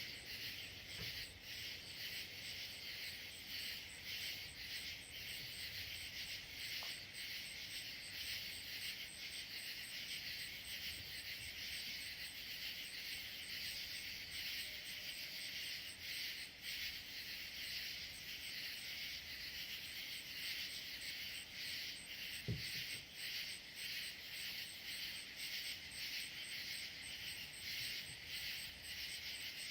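Steady chorus of night insects such as crickets, a dense high trill with one rapid, evenly pulsing high note over it. A single short knock comes about two-thirds of the way through.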